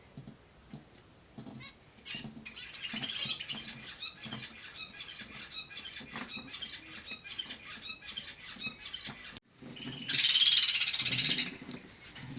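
Zebra finch chicks giving rapid, harsh begging calls as they are fed, with a louder burst of calling about ten seconds in. Soft low thumps sound under the calls.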